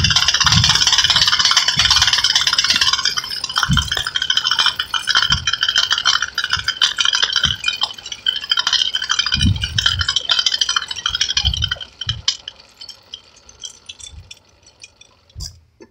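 Motorized bicycle's small kit engine running with a fast, buzzing rattle as the bike is ridden, with low gusts of wind noise now and then. The engine sound dies away about twelve seconds in, leaving faint clicks.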